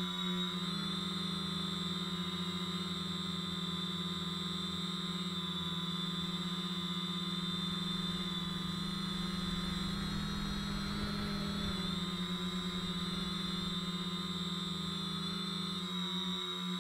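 Quadcopter's electric motors and propellers humming steadily, heard close up from the camera mounted on the craft. The pitch wavers slightly a few times as the motor speed changes.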